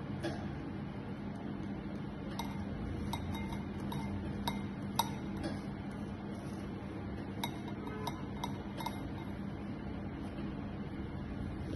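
Scattered light clicks and clinks as a silicone pastry brush spreads sauce over a pizza base resting on a metal mesh pizza screen, over a steady low hum. The clicks come mostly in the middle of the stretch.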